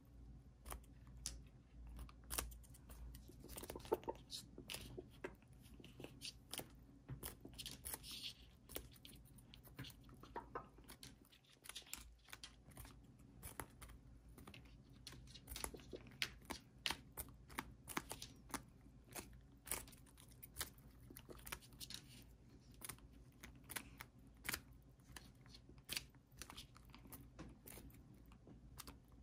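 Serama bantam roosters pecking at and tearing napa cabbage leaves: a run of sharp, irregular beak clicks and crunches, several a second.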